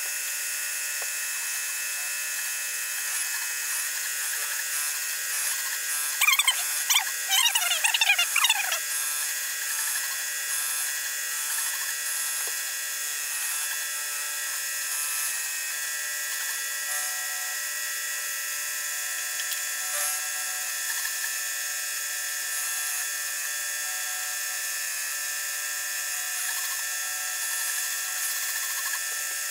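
Vertical milling machine running, its end mill cutting a metal part with a steady high-pitched whine. About six seconds in, a louder wavering squeal lasts for two or three seconds.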